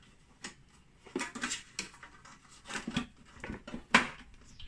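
Sheet-metal amplifier screening can clattering against the plastic speaker cabinet as it is lowered and seated by hand: a series of light metallic clicks and knocks, the sharpest about four seconds in.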